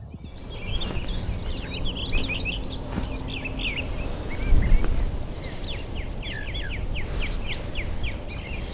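Songbirds chirping and singing: many short, quick notes, with a rapid run of them near the end. Under them is a steady low rumble, with a dull bump about halfway through.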